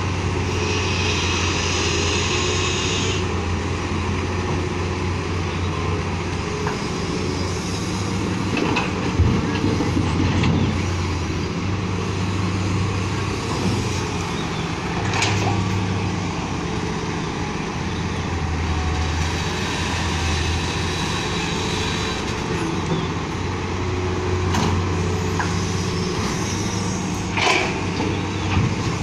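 Diesel engine of a Hitachi Zaxis 225USR excavator running steadily under load while it loads a dump truck, with a few sharp knocks as rock and soil drop into the steel tipper bed. Short spells of hiss come and go over the engine hum.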